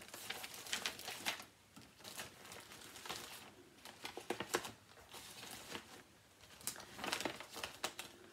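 Hands handling cross-stitch projects and their materials: irregular rustling with scattered light clicks, in several short bursts.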